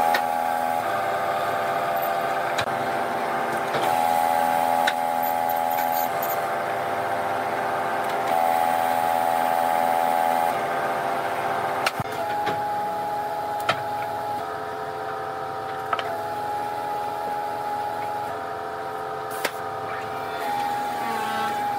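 Electric motor of a woodworking machine whining steadily, its pitch stepping up or down every couple of seconds, with a few sharp knocks.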